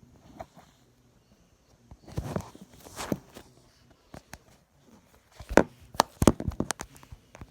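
Slime being handled: sticky squishes with sharp pops and clicks, in two clusters about two seconds in and again about five and a half seconds in.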